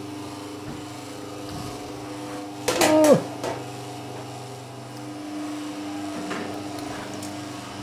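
Steady hum of an electric kitchen appliance's motor running. About three seconds in, a short, loud vocal call falls in pitch.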